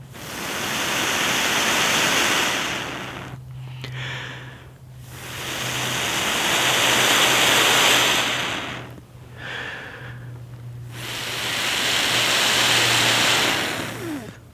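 A person blowing three long breaths onto a glowing ember held between two halves of cramp ball fungus (Daldinia concentrica), each a rushing hiss that swells and fades. The fungus is damp, so the ember needs plenty of air to keep from going out.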